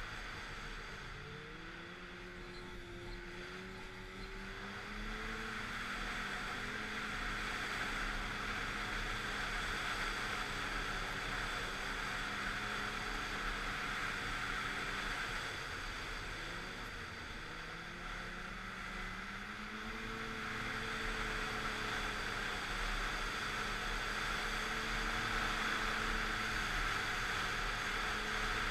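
Snowmobile engine running as the sled travels along the trail, its pitch wavering with the throttle, easing off a little past the halfway point and picking up again, over a steady rushing noise.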